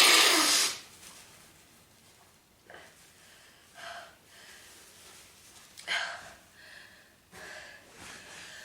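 A woman's sneeze ends in the first moment. Then come several short sniffs and gasping in-breaths, the loudest about six seconds in, between sneezes of a long sneezing fit.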